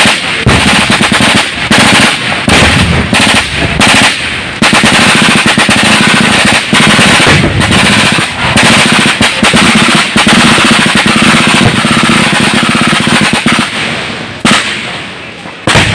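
Loud, sustained automatic gunfire: machine guns firing long, rapid bursts with explosions among them during a live-fire infantry assault. The dense firing dies down about two seconds before the end, leaving a couple of separate sharp blasts.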